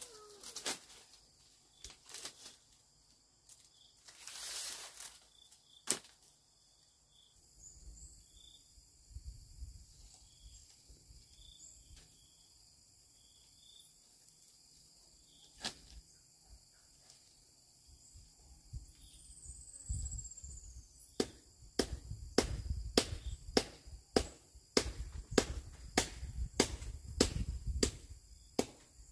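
Sharp knocks, scattered at first, then a steady run of strikes about two a second near the end, like a tool repeatedly hitting wood or bamboo. Faint bird chirps in the background.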